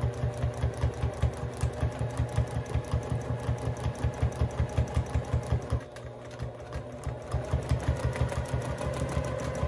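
Home sewing machine stitching in free-motion quilting: a rapid, even needle rhythm over the motor's hum. It slows and quietens about six seconds in, then picks up speed again.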